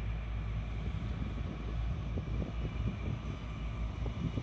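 A Caterpillar backhoe loader's diesel engine running steadily at low revs, with wind buffeting the microphone in gusts from about halfway through.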